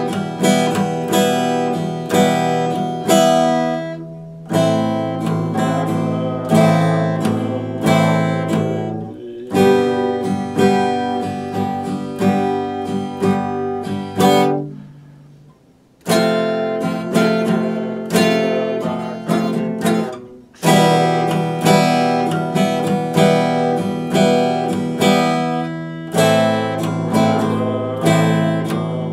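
Epiphone acoustic guitar played solo without singing: chords strummed and picked in a steady rhythm, in phrases broken by short gaps, with one full pause of about a second near the middle.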